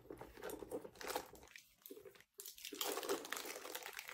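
Soft rustling and crinkling as small items are handled and packed into a leather shoulder bag, with a brief pause about a second and a half in before the handling resumes.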